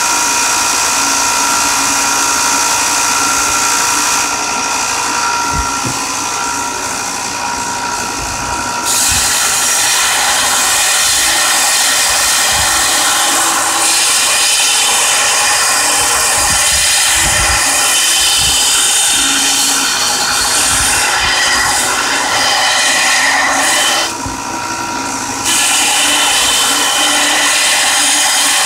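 Belt grinder running with a steel knife blade held against the belt, grinding the blade's edge bevel. The grinding eases off briefly twice, around five seconds in and again around twenty-four seconds in.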